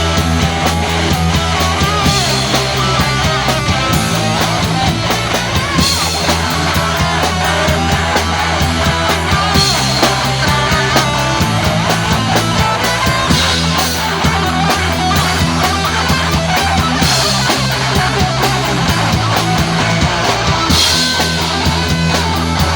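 Instrumental break in a punk rock song: electric guitar over bass and drums, with no singing.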